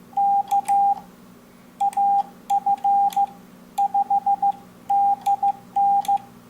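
Morse code: a single steady beep tone keyed in short and long elements, dots and dashes sent in several groups with short gaps between them, over a faint steady hum.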